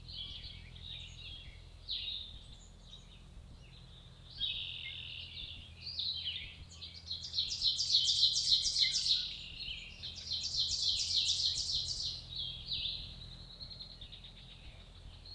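Small songbirds singing and chirping, with two loud trilled phrases of fast repeated notes about seven and ten seconds in.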